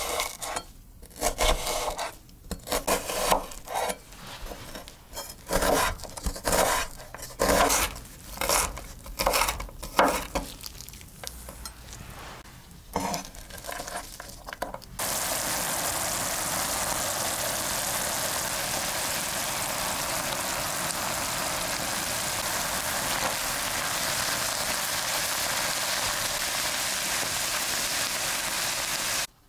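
A chef's knife chopping an onion on a wooden board, in short irregular runs of cuts. About halfway through it switches abruptly to minced beef and onion frying in a pan, a steady even sizzle that stops suddenly near the end.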